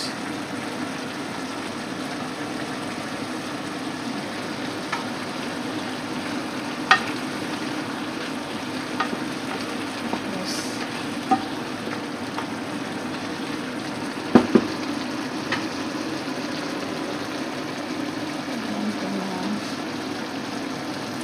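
Pan of chicken curry with potatoes and carrots cooking with a steady sizzle, while a wooden spoon stirs it and knocks against the pan now and then, twice in quick succession about two-thirds of the way through.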